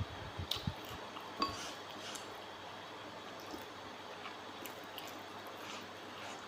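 Faint wet eating sounds, with a few soft clicks in the first second and a half, then only a low hiss.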